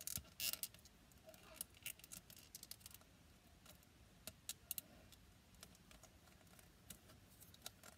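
Faint, irregular light clicks and taps of small plastic toy figurines being handled and moved into place.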